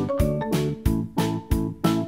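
Background music: a keyboard tune over a steady beat of about three beats a second.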